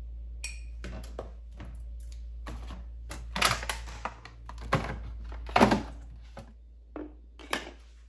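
Irregular knocks and clatter of plastic bottles and jars being lifted out of a refrigerator door shelf, two clusters loudest about halfway through, over a low steady hum. A couple of lighter knocks follow near the end.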